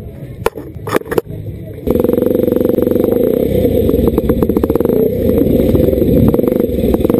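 Honda CRF230's single-cylinder four-stroke engine: a few clunks near the start, then about two seconds in the throttle opens and the bike pulls away, running hard and loud over rough dirt with a constant rattle.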